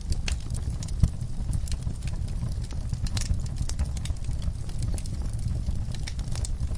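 Fireplace fire crackling, with scattered sharp pops, a louder one about a second in, over a steady low rumble.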